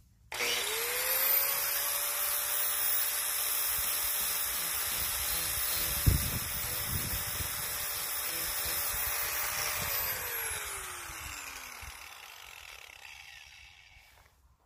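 Electric grinder spinning up, running steadily with a high whine and a loud rush as it grinds out gouged fiberglass at a boat's bow, with one sharp knock about six seconds in. It is switched off about ten seconds in and its whine falls away as it winds down.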